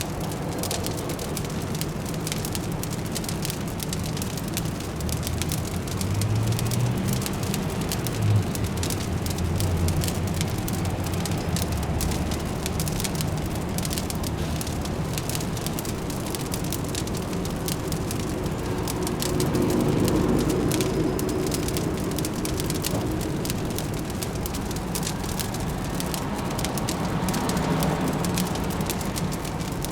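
Fireplace crackling with many small pops, one louder pop about eight seconds in, over a steady low city traffic hum that swells twice.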